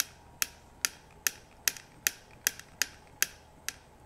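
Mercedes W123 wagon rear wiper drive assembly worked back and forth by hand: a sharp metallic click about every 0.4 s, some ten in all, as the wiper arm swings on its freshly freed, greased shaft in the housing.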